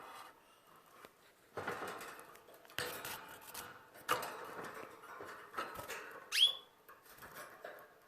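Canary chirp: one quick rising whistled note about six seconds in, the loudest sound. It comes after a few short scratchy rustles at the nest.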